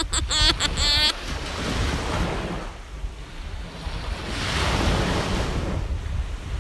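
Sea waves washing in against a rocky shore, swelling twice, with wind rumbling on the microphone. A short bit of a man's voice in the first second.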